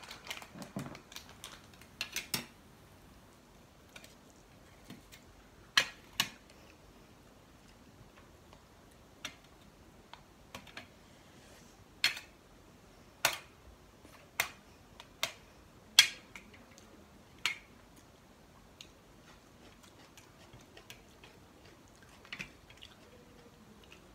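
Metal spoons clinking and scraping against steel plates and bowls as rajma is served onto rice: scattered sharp clinks, a quick cluster at the start and several single louder ones about halfway through.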